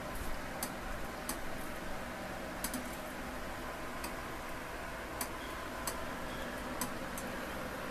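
Glass steam distiller heating back up with a lemongrass charge: a steady faint hiss with irregular sharp ticks every second or so, as distillation is about to resume.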